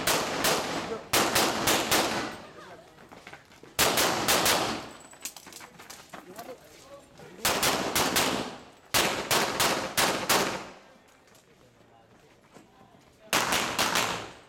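Glock 17 9 mm pistol, an Open-division race gun, fired in quick strings of shots, several to a string, about six strings with pauses of a second or more between them.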